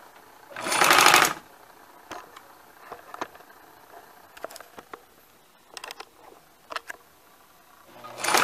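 Singer household sewing machine run in a short burst of about a second, needle rapidly stitching through paper with the stitch length set to zero, as a test of whether the feed still advances. A few faint clicks follow, and a second run starts near the end.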